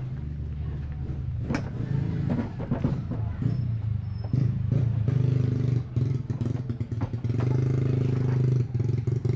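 An engine running steadily and growing louder about five seconds in, with knocks and clatter from the plastic washing machine being moved and handled.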